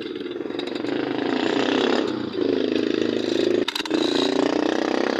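Small engine running with a fast, even firing beat. It drops out briefly, with a click, a little past the middle of the clip.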